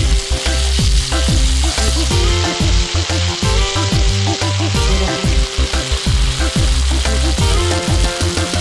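Spicy sea anemone sizzling on a hot cast-iron sizzling plate while a metal spatula stirs and scrapes it. Background music with a heavy, thumping bass beat plays under it.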